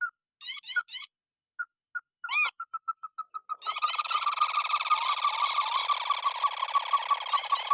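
Birds calling. A few separate sharp call notes give way to a quickening run of short repeated notes. From about three and a half seconds in, a dense, loud chorus of rapid calls sets in, with rising notes over it.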